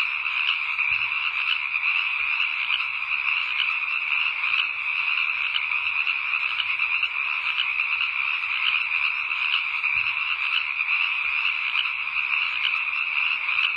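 A dense, steady night chorus of many frogs calling at once.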